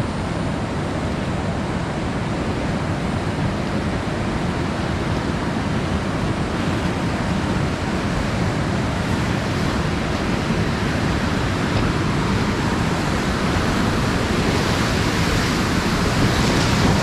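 Steady rushing of whitewater from Granite Rapid on the Colorado River, growing slowly louder as the raft drifts toward it.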